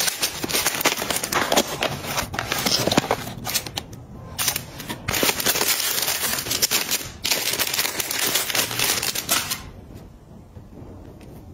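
Plastic packaging crinkling and rustling as a pink plastic mailer is torn off a box and then a clear plastic bag is opened and handled, a dense crackle with brief pauses that stops near the end.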